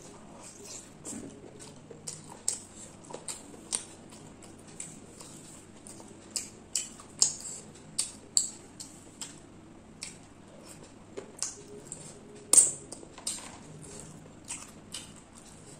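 Eating sounds of chicken curry and rice: chewing with sharp mouth clicks and smacks at irregular intervals, about a dozen clear ones, the loudest near three-quarters of the way through.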